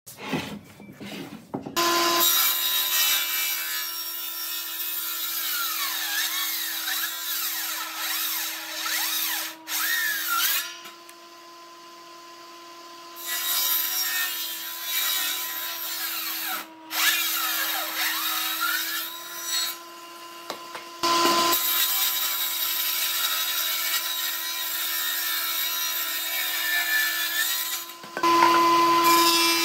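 Hitachi combination woodworking machine (circular saw and jointer) running with a steady hum as boards are fed through, its cutting noise coming in several passes with lulls about 10 and 20 seconds in.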